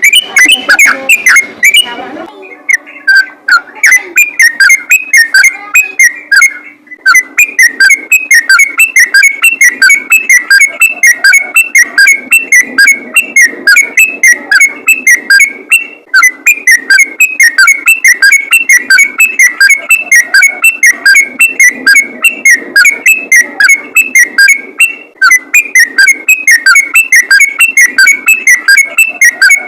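Sooty-headed bulbul (trucukan) singing a loud, rapid, unbroken run of short whistled notes, the 'ropel' style of song. The run thins out briefly a couple of seconds in.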